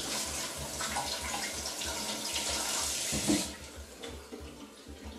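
Kitchen tap running as a white cabbage is rinsed under it, with splashing. The water stops about three and a half seconds in, with a thump just before.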